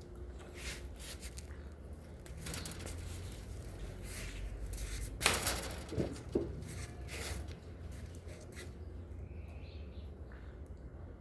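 Rustling and handling noises with scattered clicks, and a sharp knock about five seconds in followed by two smaller ones around six seconds.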